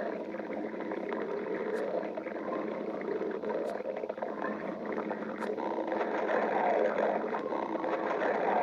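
Stomach growling: a continuous gurgling rumble that gets a little louder near the end.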